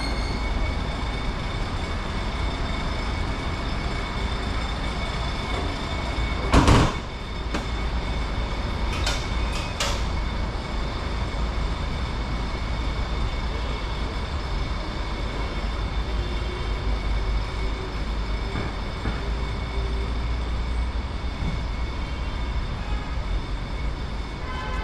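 Metro train running: a steady low rumble with a thin high whine, a short loud jolt about seven seconds in, and a few sharp clicks a few seconds later.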